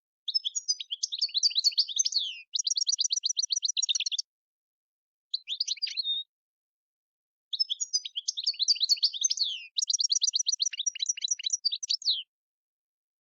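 European goldfinch singing: two long phrases of quick twittering notes ending in fast, even trills, with a short call between them.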